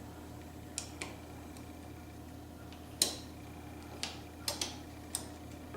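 Small, sharp metallic clicks and taps of a latch spring being refitted inside a Baldwin mortise lock case, about seven in all, the loudest about three seconds in.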